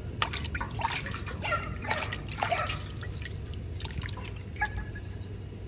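Water splashing and dripping in a stainless steel stockpot as raw chicken pieces are dunked and swished around by hand, in irregular short splashes.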